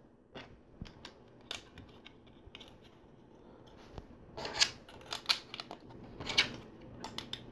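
Small plastic LEGO pieces clicking and clattering as they are handled and pressed together. Scattered clicks at first, then a busier run of clicking and rattling in the second half.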